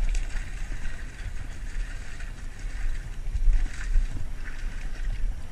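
A hooked salmon splashing and thrashing at the water's surface, in a few short bursts, over a steady low rumble of wind on the microphone.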